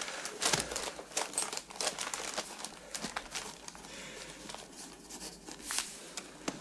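Newspaper rustling and crinkling as it is handled and unfolded, a string of irregular paper crackles, loudest at the start and again near the end.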